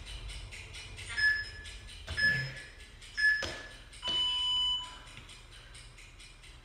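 Workout interval timer counting down: three short beeps about a second apart, then one longer beep about four seconds in, marking the end of the work interval. Faint background music with a steady beat underneath.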